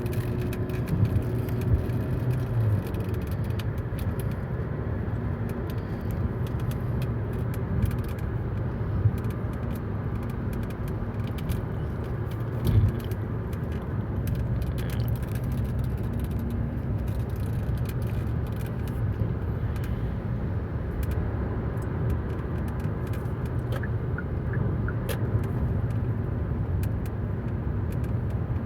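Steady road and engine noise of a moving car heard from inside the cabin, with scattered light ticks and a single louder bump about thirteen seconds in.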